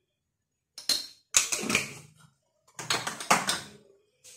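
Clicks and clatter of spice jars and containers being handled and set down on a kitchen counter, in three or four short bursts after about a second of quiet.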